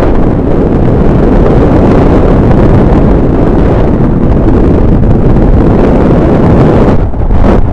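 Loud, steady wind noise buffeting an action camera's microphone as the paraglider flies through the air, dipping briefly near the end.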